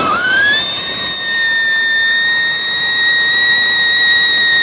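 Whistling ground firework jetting sparks: a loud, high whistle that glides up over the first half second and then holds steady, over a constant hiss.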